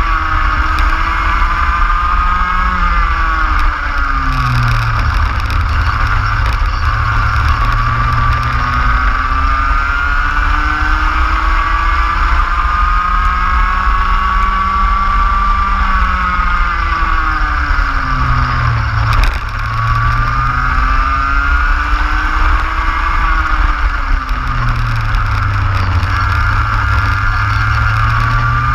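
Racing kart's engine at full throttle, heard on board: its pitch climbs slowly along the straights and drops sharply under braking about three times. Heavy wind rumble on the microphone.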